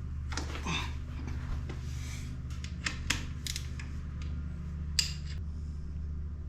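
Metal clinks and clicks of a 17 mm wrench on a motorcycle's oil drain bolt as it is cracked loose from underneath, with several sharp ticks, the sharpest about five seconds in. A steady low hum runs underneath.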